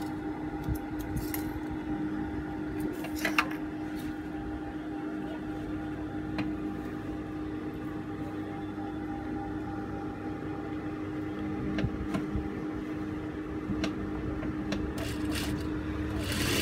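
Steady hum of a Juki industrial sewing machine's motor running idle, with a few light clicks as the fabric is handled and set under the presser foot. Right at the end the machine starts stitching.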